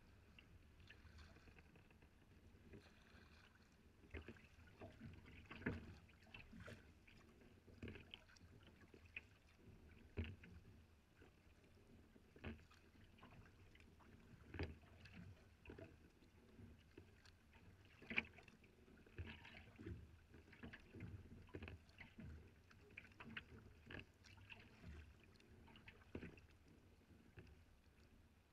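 Sea kayak paddling, heard close from the deck: a paddle blade dips and splashes every second or two, and water laps and slaps against the hull. The loudest splash or knock comes about two-thirds of the way through.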